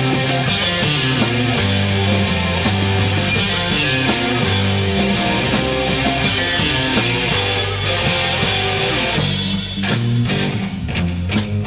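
Rock band recording with electric guitars, bass guitar and drum kit playing. About nine and a half seconds in the sound thins out, leaving the drum hits more prominent.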